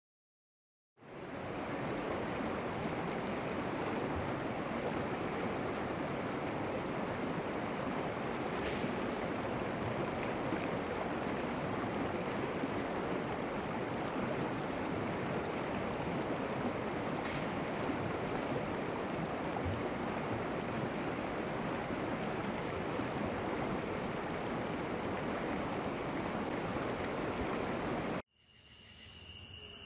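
Steady rushing of a stream flowing over rocks, starting about a second in. Near the end it cuts off abruptly and gives way to crickets trilling in steady high tones.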